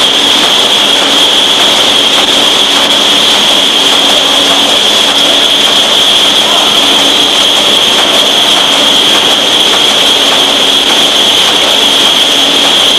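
Steady, loud machine noise from pilfer-proof cap-making machinery running, with its rotating cap-sorting drum tumbling the caps: an even hiss with a steady high whine and a faint low hum that comes and goes.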